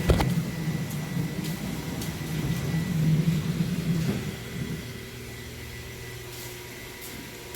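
Semi-automatic washing machine running, a steady low motor hum that shifts to a lower, quieter hum about four seconds in.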